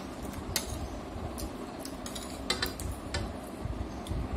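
Metal spoon clinking and scraping against a plate as fried rice is scooped up, a few light clicks spread over the moment with a short cluster a little past halfway.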